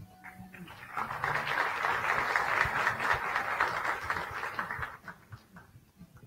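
Audience applauding: clapping builds about a second in, holds for about four seconds, then thins out to scattered claps.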